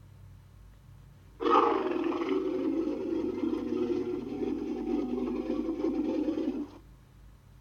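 Godzilla roar sound effect, mixed from the MonsterVerse, Millennium and Heisei Godzilla roars: one long roar that starts suddenly about a second and a half in, lasts about five seconds and cuts off abruptly.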